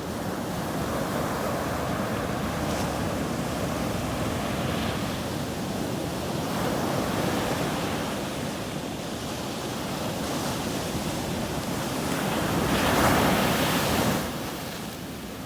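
Sea waves breaking and washing up a sandy beach, a steady surf wash that swells and eases, with the loudest wave crashing about thirteen seconds in before the wash falls away. Wind buffets the microphone now and then.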